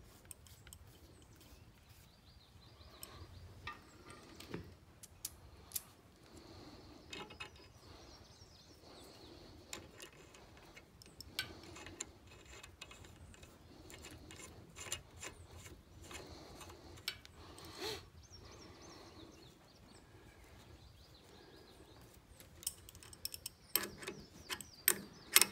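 Scattered small metallic clicks and clinks from a hydraulic hose fitting being threaded by hand onto a cylinder port fitting and an open-end wrench being set on it. A denser run of louder clicks comes near the end, as the wrench goes to work.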